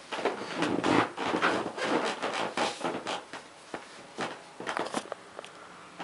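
Rustling, scraping and a few light knocks of someone moving and handling things close to the microphone, uneven throughout.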